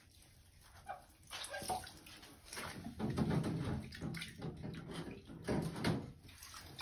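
Water sloshing and splashing in a bathtub while brass trombone parts are handled in it, in irregular bursts that start about a second in.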